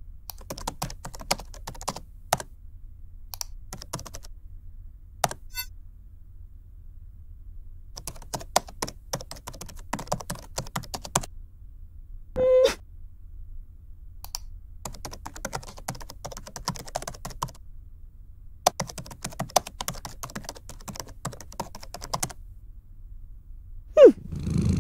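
Computer keyboard typing in several bursts of rapid key clicks separated by short pauses. A brief pitched sound comes about twelve seconds in, and a sound sliding down in pitch comes near the end.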